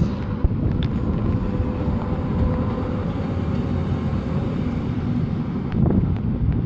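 NEG diesel shunting locomotive running light past at close range, its engine running, with wind buffeting the microphone.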